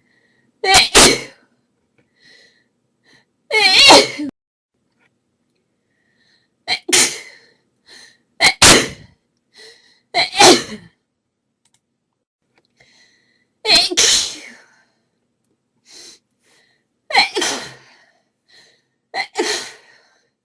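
A woman in a sneezing fit: about eight loud sneezes in a row, one every two to three seconds.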